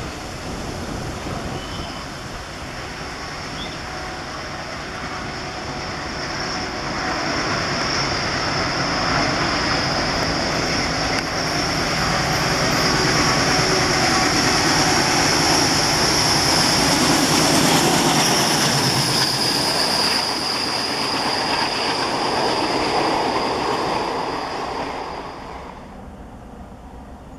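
Two ALCO WDG-3A diesel locomotives running in multiple, their 16-cylinder turbocharged engines working as they haul a passenger express towards and past, with the rumble of the train growing louder towards the middle and then easing. A steady high whine runs over it, and the sound drops away shortly before the end.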